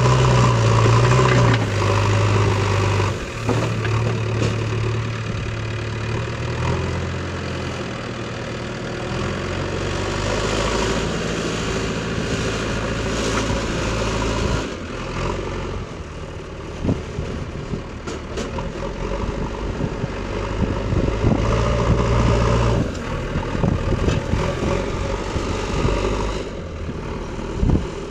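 JCB backhoe loader's diesel engine working, its pitch stepping up and down several times as the load changes. In the second half there are scattered sharp knocks.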